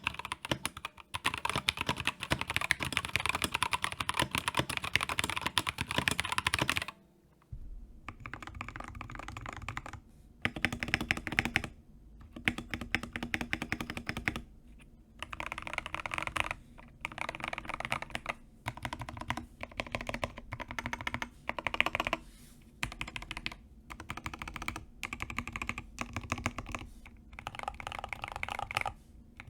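Typing on a TES68 keyboard with Gateron KS-3 Yellow linear switches: a steady stream of fast keystrokes for about seven seconds, then repeated short runs of presses on the modifier keys of the taped-and-foamed board, with brief pauses between runs.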